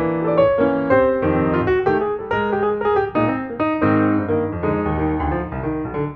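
Background piano music, with notes and chords played in quick succession.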